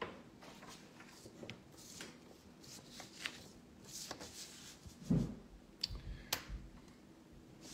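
Hands handling card boxes and packaging on a table: faint rustling and light clicks, with a soft thump about five seconds in and two sharp clicks soon after.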